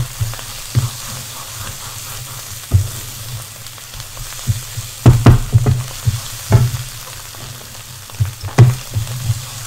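Onions sizzling as they fry in oil in a frying pan, stirred with a wooden spatula that knocks and scrapes against the pan in short bursts, thickest around the middle and again near the end. The onions are being fried until they caramelize.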